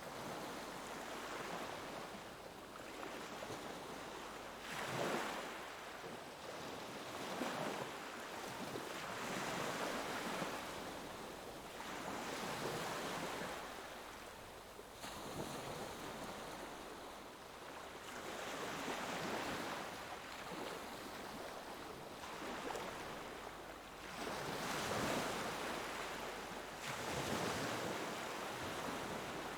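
Sea waves breaking and washing in, the surf swelling and fading every few seconds.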